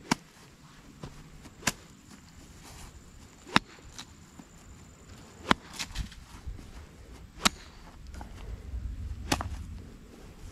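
A golf iron striking balls off the grass one after another: six sharp cracks, about two seconds apart.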